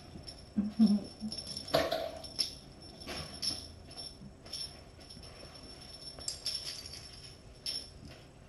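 Kittens playing with crinkly tissue paper and toys: scattered rustles and light clicks, over a faint steady high-pitched whine.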